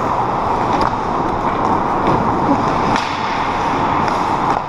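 Ice hockey rink sound: skates scraping and carving on the ice over a steady rink noise, with a few sharp clacks of sticks and puck.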